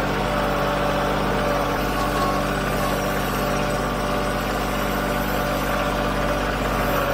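Bobcat CT2025 compact tractor's three-cylinder diesel engine running at a steady speed.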